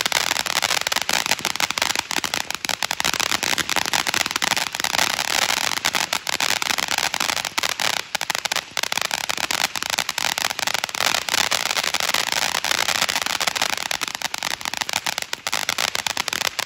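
A 1,000-gram firework fountain, Golden City's Raining Money, burning: a steady hissing spray of sparks thick with rapid crackling.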